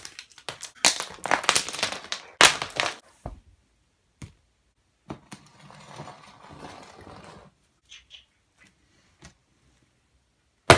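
Plastic pens, markers and a small glass ink bottle being set and dropped onto a spiral sketchbook and a wooden floor: a quick run of clicks and clatters, then a soft rustle and a few scattered light knocks as a ceramic mug is set down.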